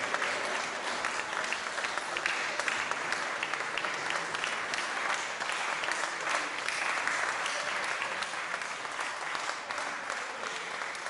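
Opera-house audience applauding in an ovation: a dense, even clatter of many hands clapping, easing off slightly near the end.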